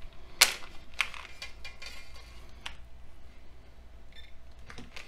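Sharp clicks and light taps of small parts being handled: a plastic Lego 9V train connector pressed onto a track piece and a metal probe pin touched to its contacts. The loudest click comes about half a second in, a second about a second in, and smaller ones follow.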